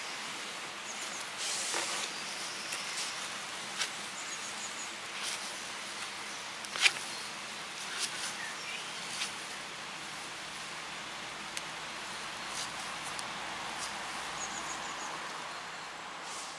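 Hands crumbling and kneading swollen, water-soaked Quellerde (an expanding potting-soil brick) in a bucket: a steady soft rustle with scattered small crackles and clicks, one louder click about seven seconds in.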